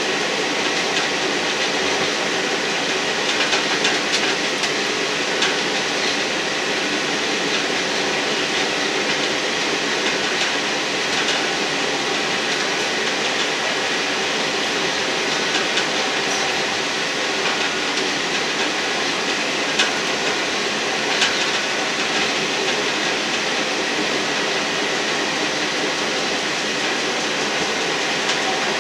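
A State Railway of Thailand British Rail Class 158-derived Sprinter diesel railcar running steadily along the track, heard from inside the train: a continuous running noise of wheels on rail and the train underway, with a few sharp clicks.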